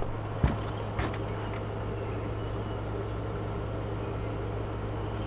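Steady low hum of background room noise, with two light knocks in the first second or so as a cardboard trading card is picked up and handled.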